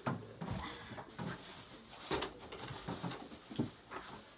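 A person drinking from a plastic cup in a series of irregular gulps, mixed with rustling as she moves on the bed.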